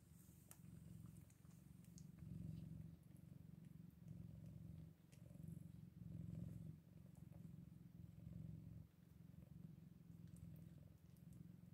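Faint, low cat purring that swells and eases in waves every second or two with the cat's breathing, from a mother cat nursing her eight-day-old kittens.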